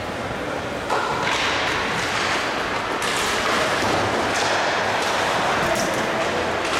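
Ice hockey play resuming from a faceoff: skate blades scraping the ice and sticks clacking on the puck. The noise rises suddenly about a second in as play starts, and it echoes in the rink.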